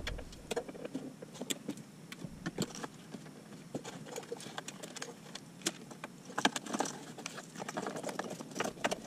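Irregular clicks, taps and light rattles of hands handling plastic wiring connectors and harness behind the van's dashboard.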